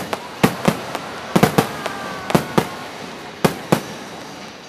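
Aerial fireworks shells bursting overhead in a rapid series of sharp bangs, mostly in pairs about a quarter-second apart, stopping about a second before the end.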